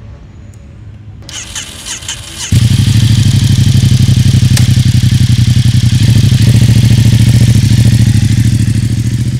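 Ducati XDiavel S V-twin motorcycle engine. It runs quietly at first, then the throttle opens sharply about two and a half seconds in and it runs loud and steady under load, easing slightly near the end.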